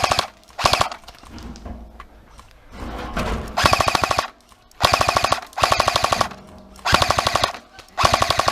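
Airsoft gun firing on full auto in about six short bursts, each a rapid rattle of shots under a second long with a whine running through it.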